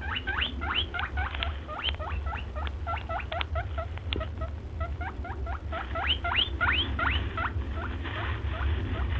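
An animal calling in a rapid run of short, rising squeaky chirps, about four to five a second, over a steady low rumble.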